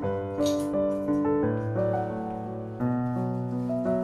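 Soft background piano music, slow held notes and chords changing every second or so.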